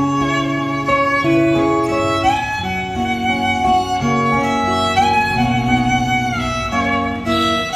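Instrumental break of a slow Vietnamese ballad played through a pair of JBL 4343 loudspeakers: a violin plays a melody with gliding notes over a plucked guitar accompaniment and a bass line.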